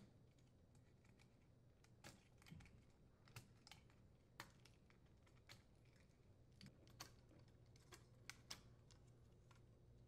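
Faint, irregular plastic clicks, about a dozen, as wire-harness connectors are worked loose and unplugged from a refrigerator's main control board.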